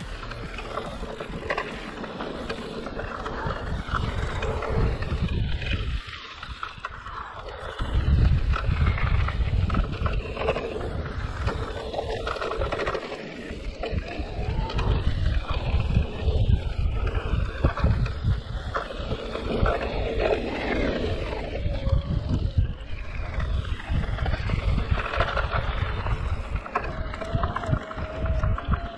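Giant Reign E+ electric mountain bike riding fast down a dirt trail: tyres rumbling and rattling over the ground, with wind buffeting the camera microphone. The rumble drops away briefly about six seconds in, and a short whine sounds near the end.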